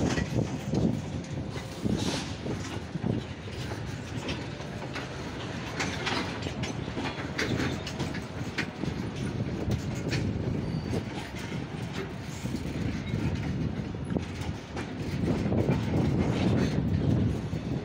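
Loaded open freight wagons of a goods train rolling past, their wheels clattering in irregular knocks over rail joints above a steady rumble. The sound grows louder near the end.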